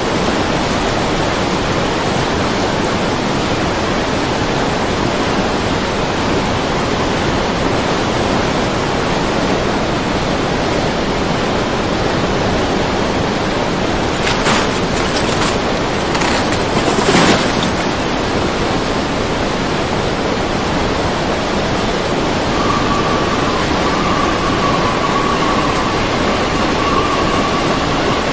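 Fast, muddy floodwater rushing and churning as a steady loud wash of noise, with a brief burst of crackling about halfway through and a faint steady high tone near the end.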